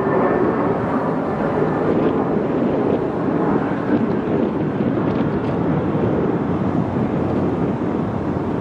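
Jet airliner engines heard as a loud, steady rush of noise, with a faint high whine in the first second.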